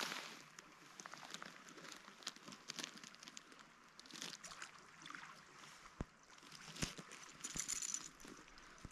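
Faint steady rush of a flowing river, with scattered small clicks and crunches and a few sharper ticks about six to seven and a half seconds in.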